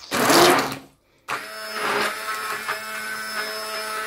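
Immersion hand blender pureeing a pot of stewed zucchini, onion and carrot with tomato paste. It opens with a loud noisy burst, breaks off briefly about a second in, then the motor runs steadily through the vegetables.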